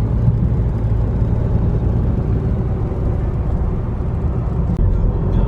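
Steady low road and engine rumble heard from inside a moving car's cabin, with a brief click about five seconds in.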